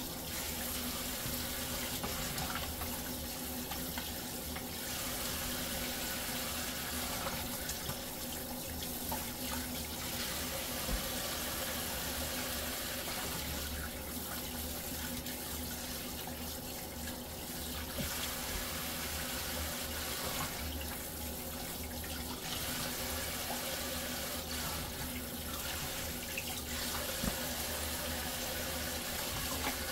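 Kitchen tap running steadily into a stainless steel sink, the stream splashing over fish and hands as they are rinsed. The splash changes every few seconds as the hands move in and out of the water, with an occasional faint click of handling.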